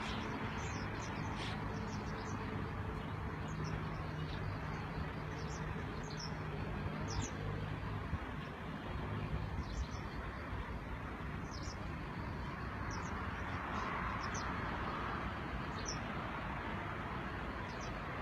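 Steady rushing of a river in flood, swollen over its banks, with short high bird chirps scattered throughout and a low hum in the first half.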